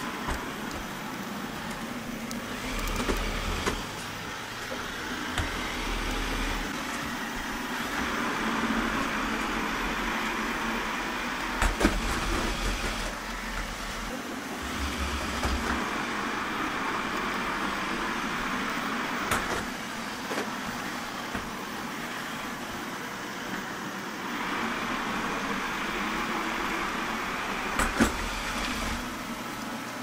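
360 S9 robot vacuum running: a steady whir from its suction motor and brushes as it cleans. The sound swells and eases in stretches of a few seconds as it moves, with a few sharp clicks along the way.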